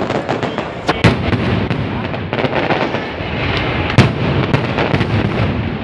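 Aerial fireworks bursting: sharp booms of shells, the loudest about a second in and again at about four seconds, over a continuous dense crackle of smaller bursts.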